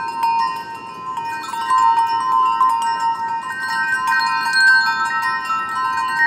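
Background music of ringing chime-like bell tones: several sustained high notes overlapping, refreshed by light strikes throughout.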